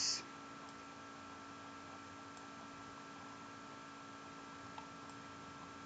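Faint steady electrical hum with a low hiss, the noise floor of the recording setup, and a single faint click a little before five seconds in.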